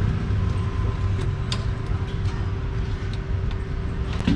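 Street traffic: a steady low rumble of engines, with a faint steady hum over it and a few light clicks, the loudest just before the end.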